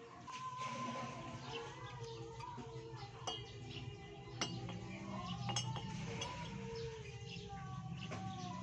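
Background music with held melodic notes, with a few short metallic clinks from small engine parts being handled.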